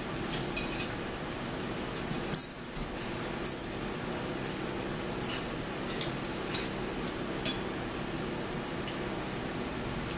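Metal forks clinking and scraping against dinner plates while food is cut and eaten: scattered sharp clinks, two louder ones about two and a half and three and a half seconds in, over a steady low hum.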